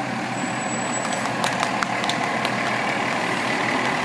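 Spartan MetroStar fire engine's diesel engine running at low speed as the truck passes close by, growing slightly louder as it nears.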